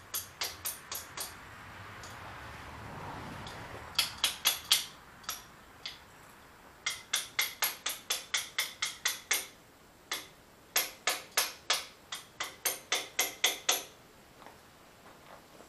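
Hammer striking metal on a Diggit EM15 mini excavator's arm in four runs of quick, ringing blows, about four or five a second, driving a bushing and pin back into place.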